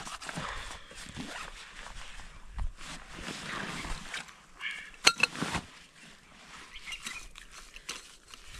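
Handling noise of a backpack being unpacked and a folding camp stool being taken out and opened: irregular rustling and knocking, with a brief pitched sound and then a sharp click a little after halfway.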